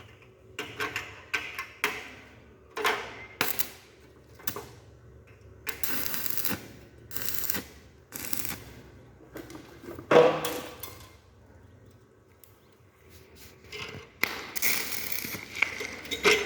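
Irregular metal-on-metal clinks and knocks, the loudest about ten seconds in, with a few short stretches of scraping or hissing noise in between, as in hands-on work at an arc-welding job.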